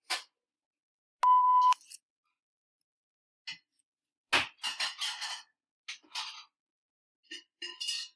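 A single electronic timer beep, one steady mid-pitched tone about half a second long, about a second in, marking the change to the next 10-second interval. Scattered short clicks and knocks follow, the loudest a little past the middle.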